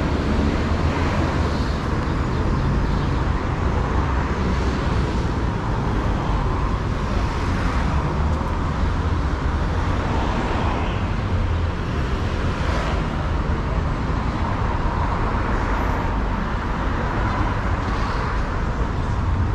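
Steady road traffic noise: a continuous rumble of cars and other vehicles on a busy city road close by.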